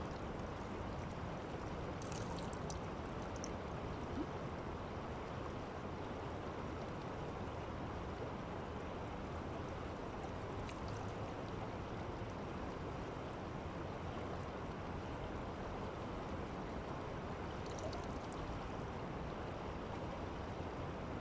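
A river running steadily over rocks, a constant rush of water, with a few faint light ticks.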